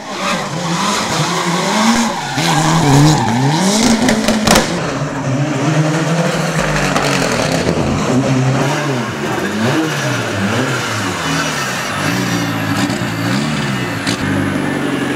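Mitsubishi Mirage hill-climb prototype race car's engine revving up and down over and over, with tyres skidding in the first few seconds and a sharp bang about four and a half seconds in. Near the end it settles into a steady idle.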